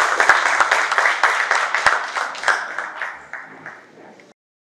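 Audience applauding, a dense patter of many hands clapping that thins out and fades about three seconds in, then cuts off abruptly.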